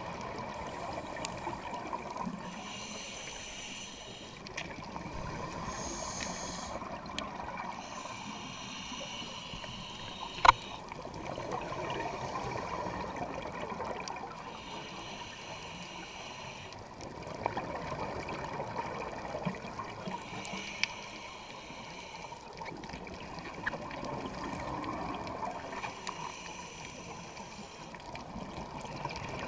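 Scuba regulator breathing heard underwater: a hissing inhale through the demand valve about every five or six seconds, alternating with bubbling exhaled air. One sharp click comes about ten seconds in.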